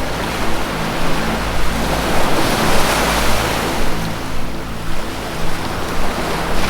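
Ocean surf washing in, swelling to a peak about two to three seconds in and building again near the end, over a low sustained musical drone.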